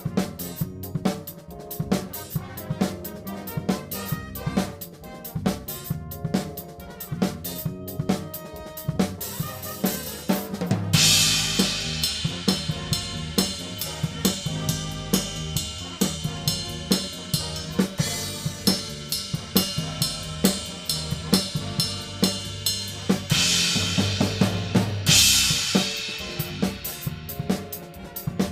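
Drum kit playing with a big band: busy snare, bass drum and hi-hat figures. From about eleven seconds in, loud ringing cymbals wash over the kit, swell louder a few seconds before the end, then drop away.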